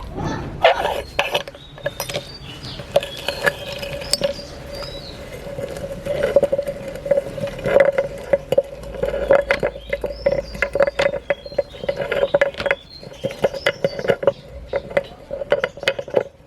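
Meat grinder crushing hard marble-shaped candies: a dense run of sharp cracks, crunches and clinks as the candy shatters in the auger, with a steady hum joining in about six seconds in.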